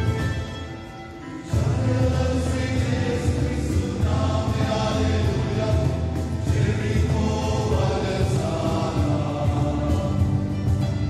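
Sinhala Catholic entrance hymn sung by a choir with instrumental accompaniment, on the word 'Alleluia'. After a short quieter moment, voices and instruments come in together, loudly, about a second and a half in.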